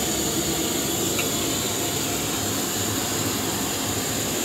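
Vegetables frying in a wok over a gas burner: a steady roar with a sizzling hiss.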